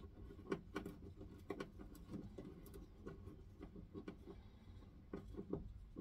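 Faint, irregular small clicks and taps of wires and connectors being fitted by hand to the terminals of a 12-volt blade fuse block, about a dozen spread unevenly.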